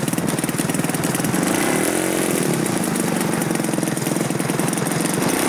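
Engine of a 40% scale Yak-54 radio-controlled aerobatic plane idling steadily on the ground with its propeller turning, with a slight rise and fall in pitch about two seconds in.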